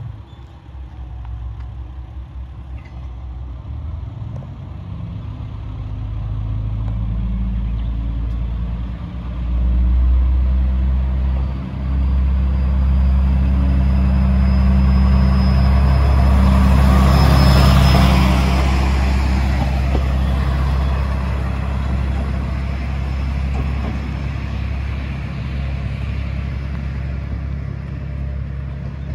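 KiHa 120 single-car diesel railcar departing: the diesel engine works harder as it pulls away, with two brief drops in the note early on. It is loudest as it runs past about two thirds in, then fades as it draws away.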